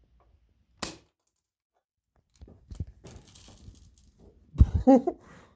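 A single sharp shot about a second in, a gun fired into the coffee maker's metal hot plate. Light clinking and handling noises follow, with a heavier knock near the end.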